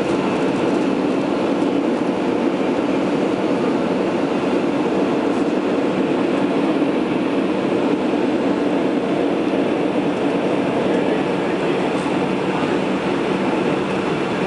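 Steady cabin noise inside a McDonnell Douglas MD-88 airliner climbing after takeoff: the drone of its rear-mounted Pratt & Whitney JT8D turbofans mixed with rushing air. A steady low hum sits under it.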